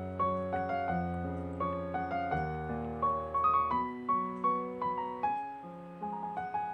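Background piano music: a melody of separate notes over held low notes, the low notes dropping out about two-thirds of the way through.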